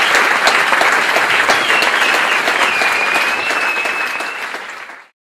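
Theatre audience applauding, many hands clapping at once, with a high wavering whistle over the clapping. The applause fades in the last second and cuts off shortly before the end.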